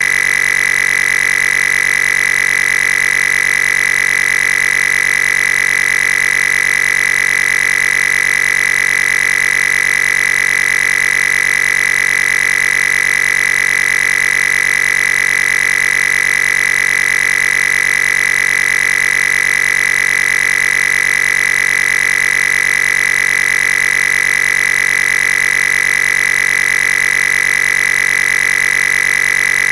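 A loud, steady electronic buzz with a strong high whine, unchanging throughout, with no speech or music behind it.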